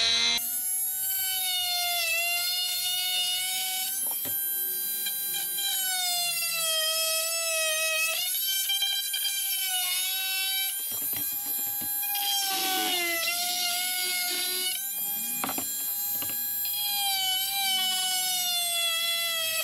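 Oscillating multi-tool cutting through a hard black plastic kayak thigh hook: a steady high buzzing whine that keeps running, its pitch sagging slightly several times as the blade bites under load.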